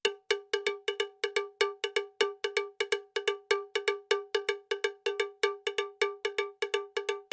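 Background music made of a single bell-like struck note, like a cowbell, repeated rapidly at about four to five strikes a second at an unchanging pitch.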